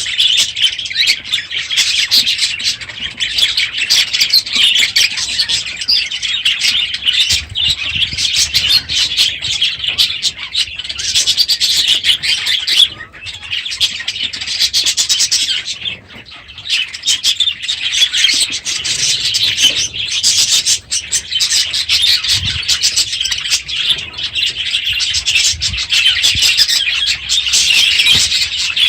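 A flock of budgerigars chattering and chirping continuously, many birds at once, with a couple of brief lulls about halfway through.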